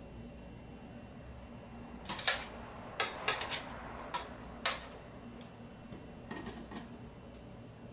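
Metal tongs clinking and scraping against a stainless steel frying pan while lifting chicken wings out. Sharp clinks come in quick clusters from about two to five seconds in, followed by a few lighter taps.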